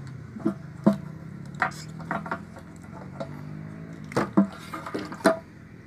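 Irregular clicks and knocks of a plastic fuel pump assembly and its mesh strainer being handled and turned over, over a steady low hum.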